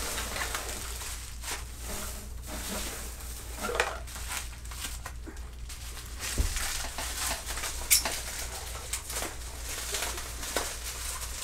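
Packaging being handled: irregular rustling and crinkling of bubble wrap and paper shred as a wrapped item is lifted out of a box, with a few small clicks and taps of cardboard.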